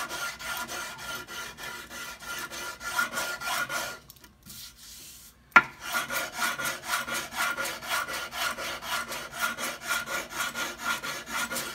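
Sandpaper on a hand-held wooden block rubbed back and forth over a wooden half-hull model, in brisk strokes about four a second. Near the middle the strokes stop for about a second and a half; a single sharp tap ends the gap and the sanding resumes.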